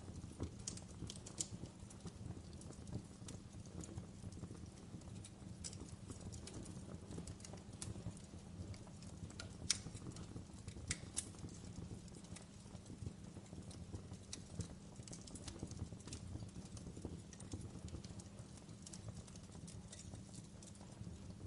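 Fireplace fire crackling: irregular sharp pops and snaps, a few louder ones near the middle, over a low steady rumble.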